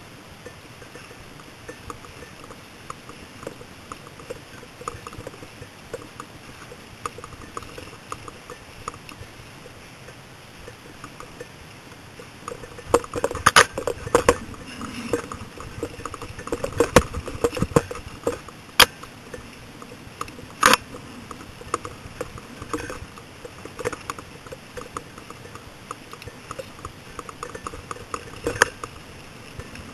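Mountain bike rattling over a rough dirt trail: a steady clatter of the chain and frame with small ticks. About halfway through come sharper knocks and clanks as the bike hits rougher ground.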